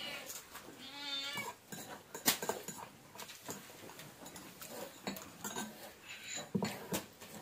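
Metal spoons clinking and scraping against ceramic bowls during a meal, in scattered sharp clinks, the loudest a little over two seconds in. A short high wavering cry sounds about a second in.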